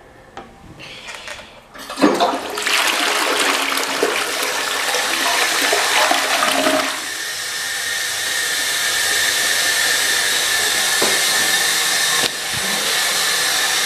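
An American Standard tank toilet flushing: the lever drops the water about two seconds in with a sudden loud rush, and the bowl drains noisily for about five seconds. After that a steady hiss with a thin whistle carries on as the tank refills.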